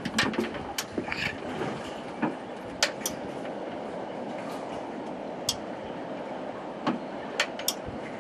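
Boat motor running steadily under way, with water rushing past the hull. Scattered sharp clicks and knocks come over it.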